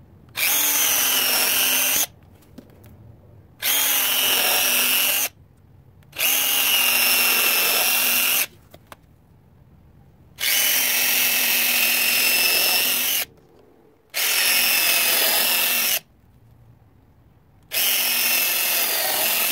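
Cordless drill boring pilot holes into a wooden workbench leg: six runs of steady motor whine, each a second and a half to three seconds long, with short pauses between.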